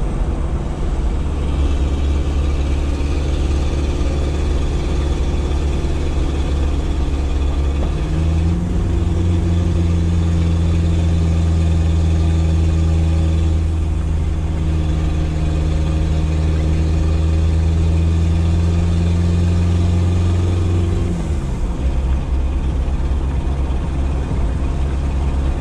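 Freshly rebuilt Mitsubishi 4D55T turbodiesel four-cylinder in a Dodge Raider, heard from inside the cabin while driving. The steady engine drone rises in pitch about eight seconds in, holds at the higher note, then drops back a few seconds before the end.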